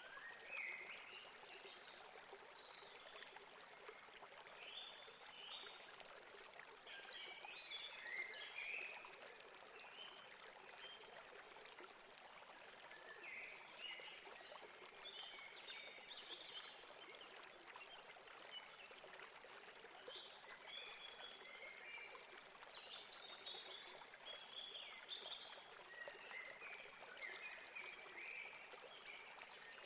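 River water flowing with a steady rush, overlaid with small birds chirping on and off, in thicker clusters about a third of the way in and again near the end.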